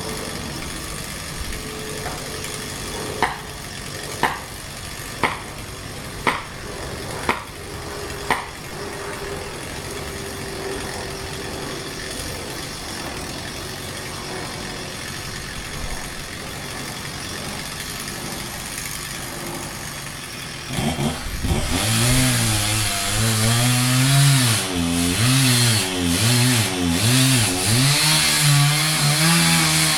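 A steady low hum broken by six sharp knocks about a second apart. About two-thirds of the way in, a chainsaw engine starts up loud and runs with its pitch rising and falling as it is revved and worked.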